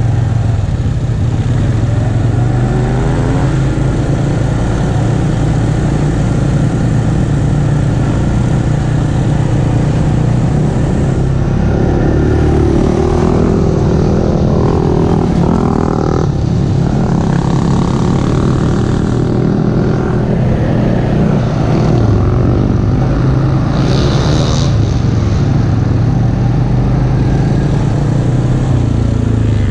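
ATV engine running at trail speed, its note rising and falling with the throttle. Around the middle a second engine, a dirt bike riding alongside, adds a rising and falling note.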